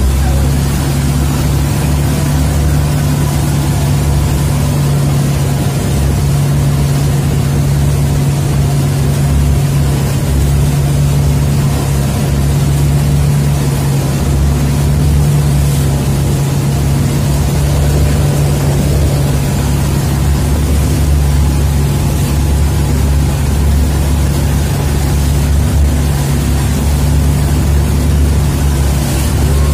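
Motorized outrigger boat's engine running at a steady, unchanging drone, heard from inside the passenger cabin, over a constant rush of water and wind.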